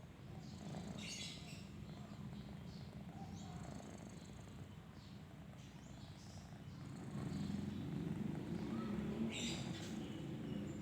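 Sleeping cat's low continuous rumble, a soft fast-pulsing purr-like snore that grows louder about seven seconds in. Two brief high rustles stand out, one about a second in and one near the end.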